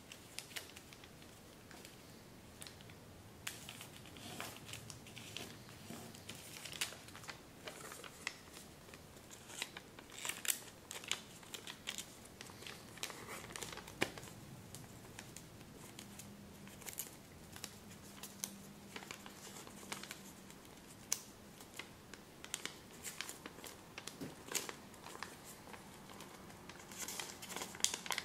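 A sheet of kami origami paper rustling and crinkling as it is folded and creased by hand, with many irregular sharp crackles.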